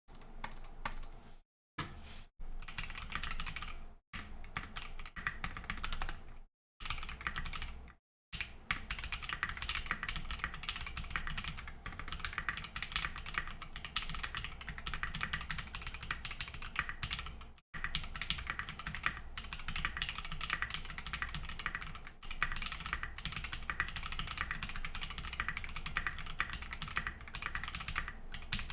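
Fast, continuous typing on an Angel65 mechanical keyboard with a polypropylene plate and H1 switches fitted with 55 g springs and lubed with Krytox, keystrokes clacking in a dense stream. The sound drops to dead silence for brief moments, a few times in the first eight seconds and once more midway, where a noise gate cuts out during pauses.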